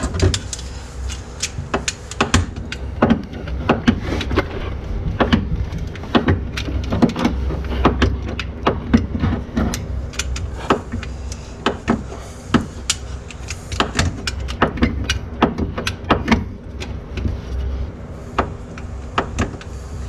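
Irregular metallic clicks and knocks of a wrench and bolts against the stamped-steel mounting plate of an aftermarket floor shifter as its bolts are worked and snugged down, over a steady low hum.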